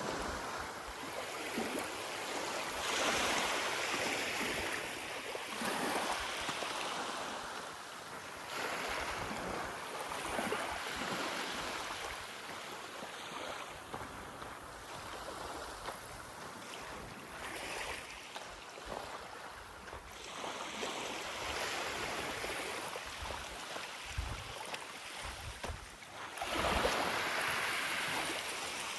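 Sea waves washing onto the beach, the wash rising and falling every few seconds, loudest near the end.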